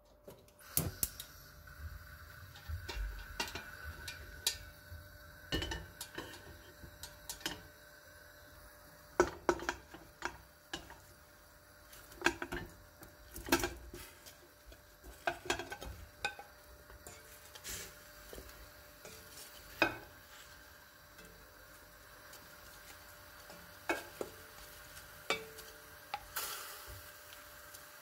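A gas hob burner is lit about a second in, then irregular clanks, knocks and clinks of metal cookware and utensils over the stove.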